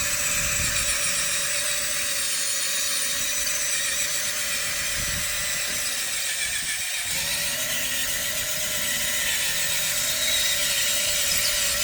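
Remote-control construction model's small electric motor running with a steady whine over a hiss, shifting slightly about seven seconds in.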